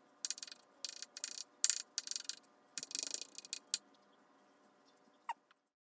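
Kitchen knife mincing fresh ginger on a bamboo cutting board: quick runs of blade taps on the wood that stop about four seconds in, with one last faint tap near the end.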